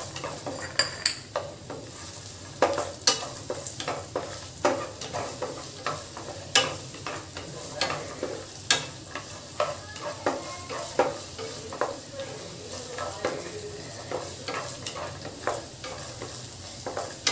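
Cashews and raisins sizzling as they fry in ghee, stirred with a wooden spatula around a nonstick pan, the spatula knocking and scraping against the pan at irregular moments. The cashews are just turning golden.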